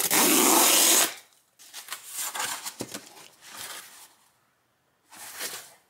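A cardboard book mailer torn open along its tear strip: one loud rip lasting about a second, then softer scraping and rustling of the cardboard as it is pulled apart.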